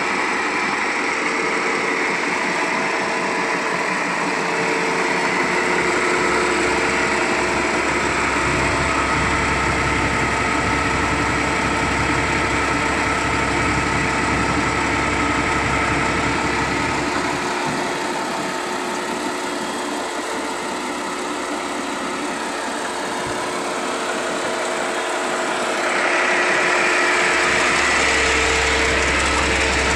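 Caterpillar D6D bulldozer's six-cylinder diesel engine running steadily at close range, getting louder near the end.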